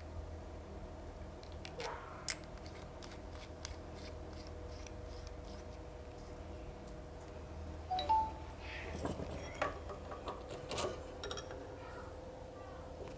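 Small metallic clicks and taps as a diesel fuel injector's parts are handled and screwed back together by hand. The sharpest click comes about two seconds in, and a cluster of taps follows from about eight to eleven seconds, over a faint steady hum.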